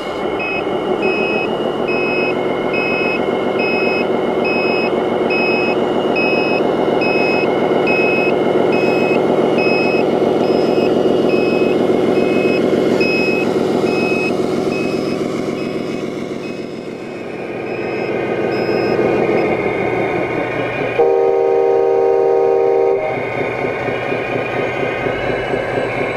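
An RC Scania 8x8 dump truck's sound module plays a diesel engine with a reversing beeper beeping about once a second as the truck backs up. The beeping stops about two-thirds of the way through, and a loud two-second horn blast follows near the end.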